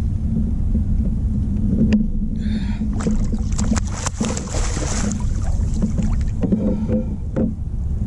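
Wind rumbling on the action camera's microphone on a kayak, with water against the hull, steady throughout. About three seconds in, a rushing hiss rises for around two seconds and then fades.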